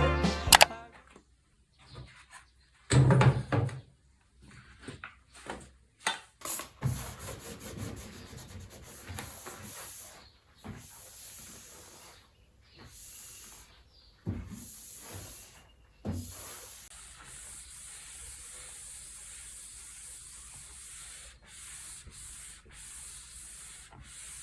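Cleaning sounds: irregular rubbing and scrubbing, with a louder knock about three seconds in.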